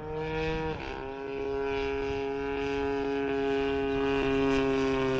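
Radio-controlled model airplane's motor and propeller running steadily in flight, an even drone that dips briefly in pitch about a second in and then grows slowly louder.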